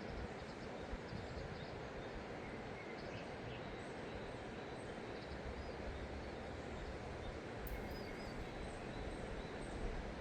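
Outdoor river-valley ambience: a steady rushing noise with faint, brief high bird chirps scattered through it.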